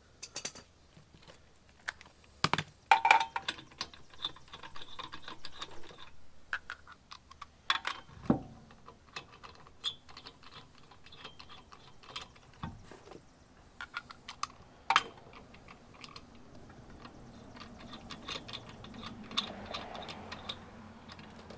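Lug nuts being handled and threaded onto wheel studs by hand: irregular light metallic clicks and clinks, with a few louder knocks and one dull thump about eight seconds in.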